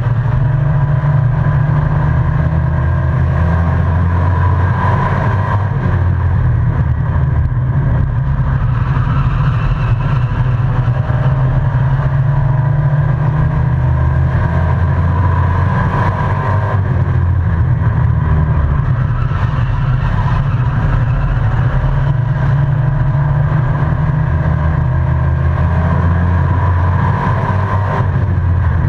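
Short-track race truck's engine heard from inside the cab, running hard at racing speed. Its pitch rises and falls every several seconds as it pulls down the straights and eases off for the turns.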